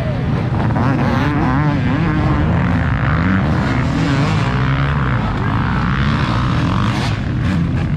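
Several dirt bike engines revving and running at once, their pitches wavering up and down and overlapping.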